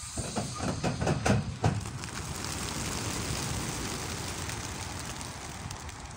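A large flock of racing pigeons taking off together from a transport truck's crates: a dense rush of beating wings that slowly fades as the birds fly off. It starts with a quick run of sharp clatters in the first two seconds.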